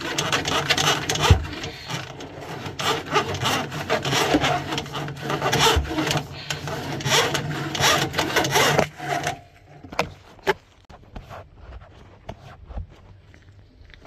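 Drain snake cable scraping and rattling as it is fed and turned inside a PVC kitchen waste pipe to clear a blockage, over a steady low hum. The scraping stops about nine seconds in, leaving a few faint clicks.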